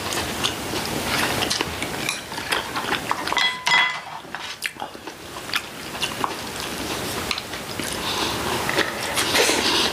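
Chopsticks clicking and tapping against ceramic bowls and plates, with chewing, throughout a meal. One clear ringing clink about three and a half seconds in.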